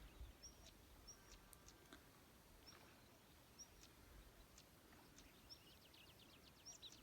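Faint birdsong: a small bird gives short, high chirps every second or so, with a fast ticking trill near the end, over quiet outdoor background noise.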